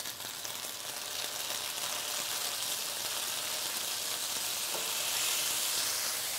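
Vegetables and grains frying in hot oil in an enameled cast-iron pan, a steady sizzle that swells slightly about five seconds in.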